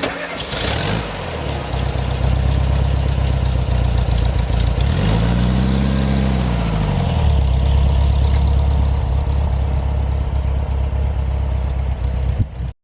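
Air-cooled flat-four engine of a VW Beetle Type 1 running at a steady idle after a brief burst of noise at the start, revved up and back down once around the middle, then cut off suddenly near the end.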